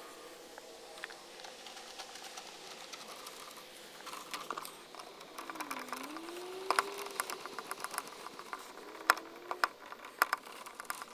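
Hand screwdriver backing self-tapping screws out of a plastic RV fender shroud fixed to aluminium trim: irregular light clicks and taps, some in quick little runs, the sharpest in the second half.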